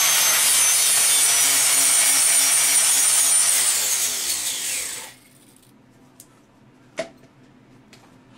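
Angle grinder with a flap disc grinding paint off a metal bar, a steady high whine over a rough grinding noise. About four seconds in it is switched off and winds down, its whine falling in pitch, and a single sharp tap follows a couple of seconds later.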